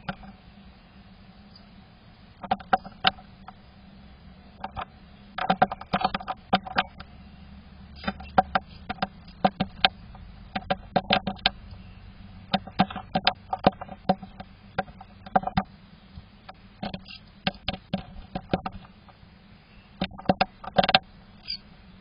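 Irregular clusters of sharp taps and scratches on the wooden nest box from a tit clambering on it at the entrance, over a steady low hum.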